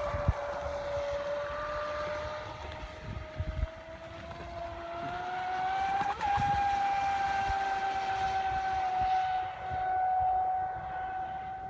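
Electric RC speedboat's brushless motor whining at speed, its pitch climbing slowly over the first half and then holding steady. Gusts of wind thump on the microphone.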